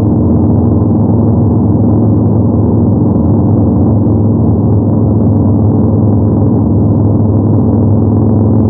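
Yamaha MT-01's big 48-degree V-twin engine and exhaust running steadily as the motorcycle cruises at constant speed, the pitch holding even with no revving or gear changes.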